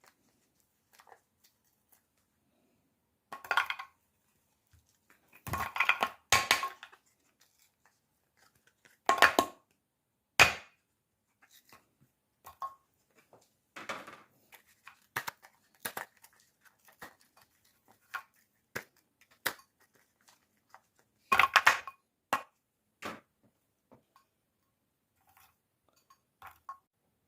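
Intermittent clatter of kitchen utensils and dishes being handled: several louder bursts with scattered light clicks and knocks between them.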